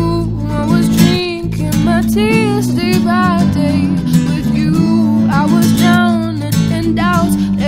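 Band playing an instrumental passage: acoustic guitar strumming over electric bass, with a mandolin and a lead melody of bending, wavering notes above.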